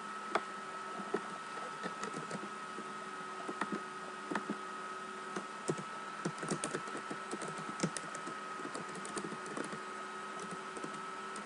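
Computer keyboard keys clicking at an irregular pace as a file path is typed, over a faint steady hum.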